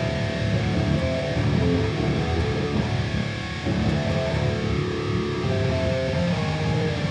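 Electric guitar played through a Boss Katana Gen 3 2x12 combo amp, strummed chords and riffing. Contour 1 is engaged, with its frequency set at roughly half.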